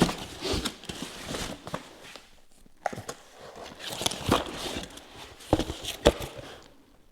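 Packaging being handled and pulled about: uneven rustling with several sharp knocks, stopping shortly before the end.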